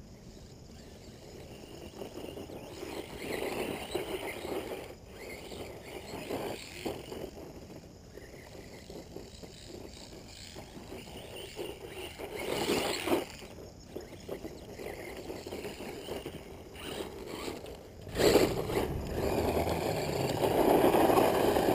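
Tacon Valor 1/14-scale brushless 4x4 RC monster truck driving over wood chips and gravel: scrabbling tyres and drivetrain noise. It gets louder over the last few seconds as the truck comes close.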